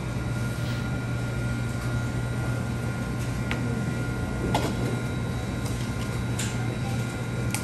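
Steady hum of fast-food kitchen machines, with a constant faint high whine and a few light clicks and knocks.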